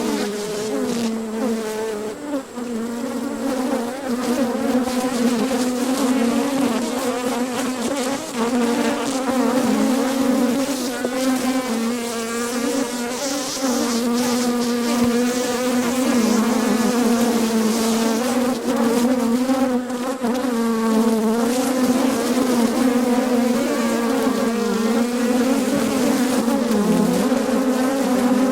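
A mass of honeybees buzzing around an opened hive during an inspection: a loud, steady hum of many wingbeats, with the pitch wavering slightly as bees fly about.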